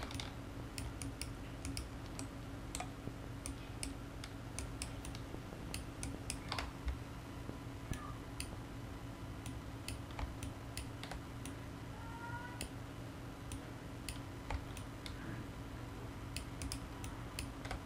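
Scattered, irregular clicks from a computer mouse and keyboard during 3D modeling work, over a steady low hum.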